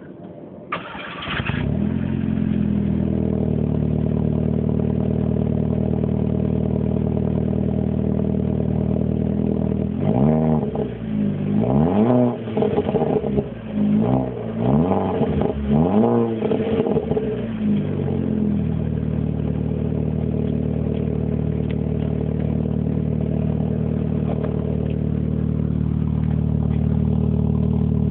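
Volkswagen Golf 5 GTI's turbocharged 2.0-litre four-cylinder, exhausting through an R32 rear section, cranked by the starter and catching within about a second, then idling steadily. About ten seconds in it is revved in several quick blips, each rising and falling, for some seven seconds, then settles back to a steady idle.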